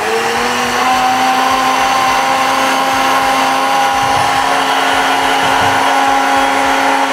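Countertop blender running, blending a liquid fish mixture; its motor rises in pitch to speed in the first second, then runs steadily with a whine.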